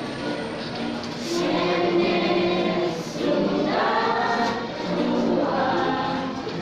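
A group of voices singing a song together over music, in held, sung notes.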